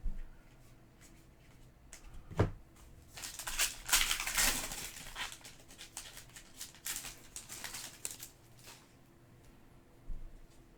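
Trading cards being handled and flipped through, with a soft knock about two seconds in, then irregular rustling and sliding of card stock and pack wrapper that is loudest around the middle.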